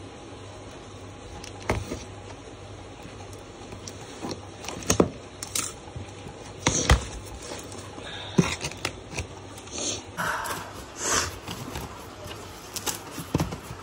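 Cardboard carton being cut open and unpacked by hand: scattered sharp clicks and knocks on the box as the tape is cut and the carton handled, then rustling and scraping of cardboard flaps and plastic wrapping from about ten seconds in.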